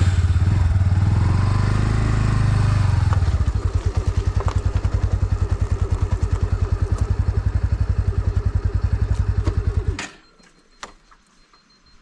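Motorcycle engine running, a little louder and smoother for the first few seconds, then settling into an even, rapid idle putter. About ten seconds in it is switched off and cuts out suddenly, followed by a single faint click.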